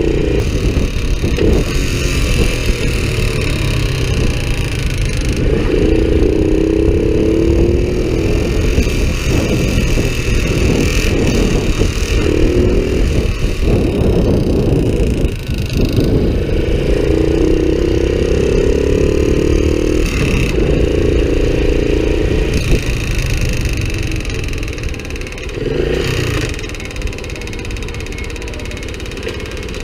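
Honda Cub's small single-cylinder four-stroke engine running, its speed rising and falling, with an abnormal mechanical noise that the owner says has been getting louder and suspects may come from the cam chain.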